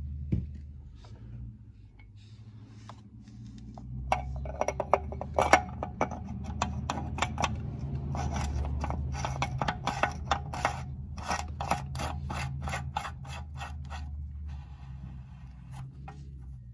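A metal oil filter housing cap on a Toyota 3.5 L V6 being screwed back on by hand, its threads scraping and rubbing. The turning brings scattered clicks, then a run of quick ticks, about three a second, over a steady low hum.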